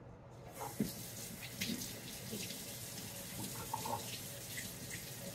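Tap water running from a faucet into a stainless steel sink, splashing through the roots and old moss of an orchid held under the stream to rinse the moss out. The water starts about half a second in.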